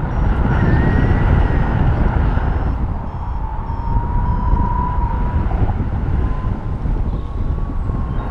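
Wind rushing over the microphone in paraglider flight: a steady, heavy rumble with a thin whistling tone that wavers slightly in pitch throughout.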